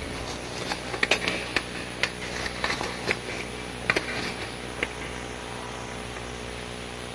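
A pause in a recorded talk: a steady hum of the recording with a scatter of sharp clicks and knocks over the first five seconds, then only the hum.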